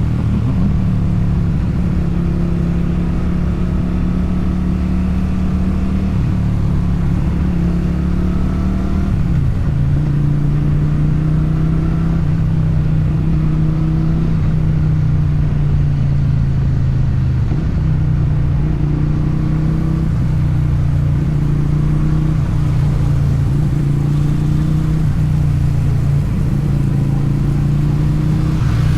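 Motorcycle engine and exhaust running steadily under way, heard on board the bike. The engine note drops a little about nine seconds in and then holds steady.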